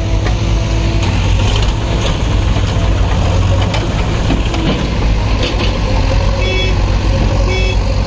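JCB 3DX backhoe loader's diesel engine running steadily while its bucket dumps soil into a tractor trolley, with scattered knocks of clods dropping in. Two short high beeps come near the end.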